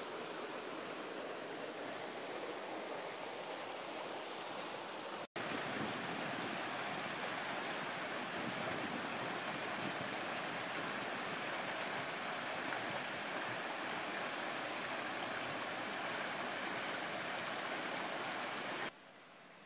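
River water rushing and churning between boulders in a steady roar. It drops out briefly about five seconds in, comes back a little louder, and cuts off suddenly near the end.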